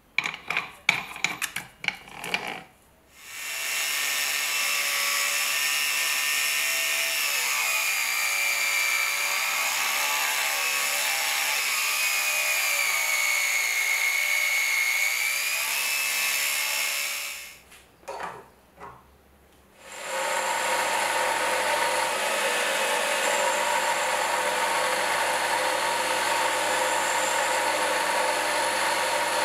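A few clicks as a 125 mm cut-off disc is fitted onto an angle grinder, then the angle grinder runs for about fourteen seconds, cutting into the rusty metal of an old hammer head, its whine wavering in pitch. After a short pause with a few knocks, a bench grinder runs steadily as the hammer's metal is pressed against its grinding wheel.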